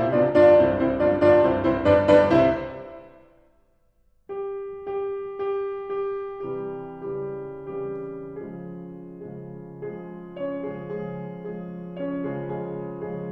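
Classical piano music. A loud, busy passage ends and dies away about three seconds in. After a brief silence a new, softer piece begins with repeated chords, about two a second, and then moves on to held notes.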